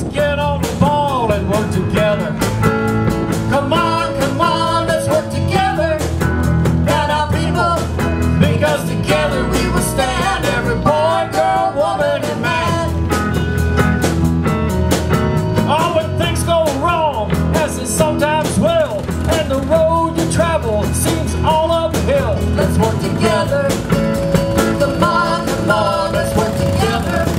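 Live blues-rock band playing: electric guitars, bass and drums, with a steady beat and bending lead lines.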